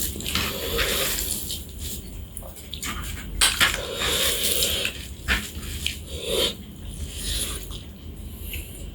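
Spatula stirring pork in a cooking pot, with irregular scrapes and clicks against the pot.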